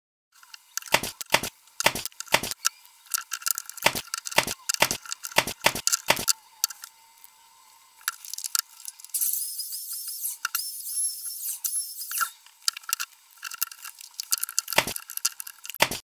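Wooden boards and birdhouse parts being handled on a workbench: a quick run of sharp knocks and clicks for about six seconds, then a high hiss with squeaks about nine seconds in, then more knocks toward the end.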